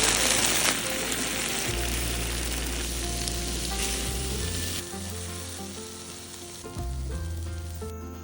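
Food sizzling in a hot pan: a loud surge of sizzling at the start and again about four seconds in, then easing off. Background music with a soft bass line plays underneath.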